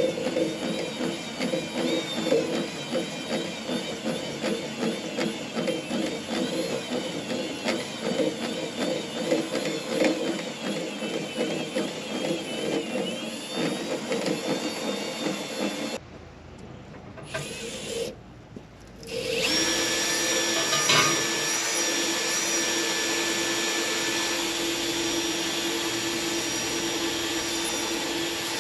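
Machinery running: first an unevenly pulsing power tool or motor with wavering pitch, then, after an abrupt cut, a steady machine hum with a few fixed tones.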